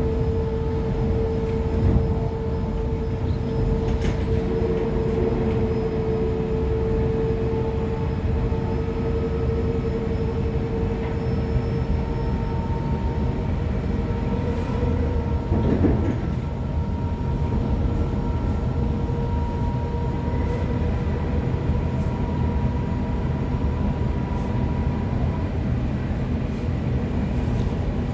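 A Sydney Trains Waratah electric multiple unit running along the line, heard from inside the carriage: a steady rumble of wheels on rail with a steady traction-motor whine whose pitch changes about halfway through. A few short knocks come through, one near the start and one about halfway.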